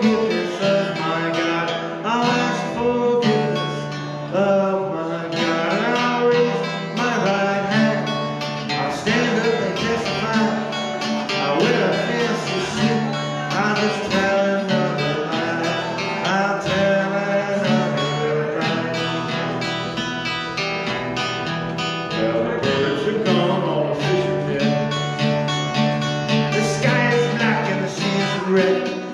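Solo archtop guitar strummed and picked in a country-style instrumental passage, with steady chord strums.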